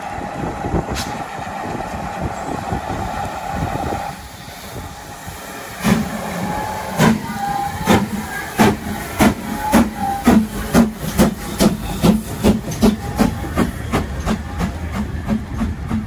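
GWR Castle-class four-cylinder steam locomotive 5043 Earl of Mount Edgcumbe pulling away with its train. Steam hisses steadily at first. About six seconds in come sharp exhaust chuffs, slow at the start and getting quicker as the engine gathers speed.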